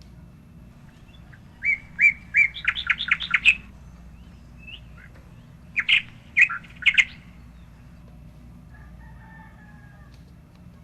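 A bird singing two short bursts of quick, sharp chirps, about four seconds apart, over a steady low background hum.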